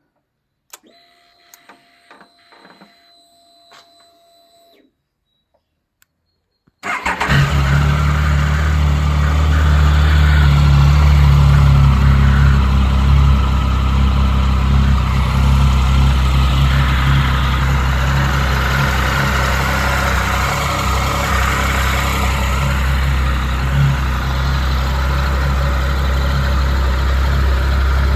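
2007 Triumph Tiger 1050's three-cylinder engine, on its stock exhaust: a faint whine and a few clicks, then about seven seconds in the engine starts abruptly and settles into a steady idle.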